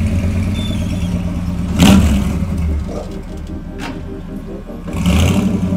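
Classic Ford F100 pickup's engine pulling away, a low rumble with a sharp rev about two seconds in, easing off, then revving up again near the end.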